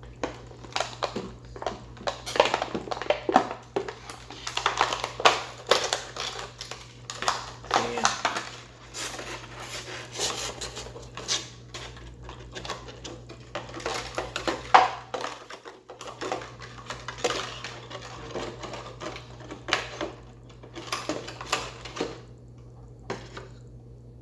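Toy packaging being worked apart by hand: irregular clicking, rattling and rustling of plastic and cardboard as pieces are pulled free.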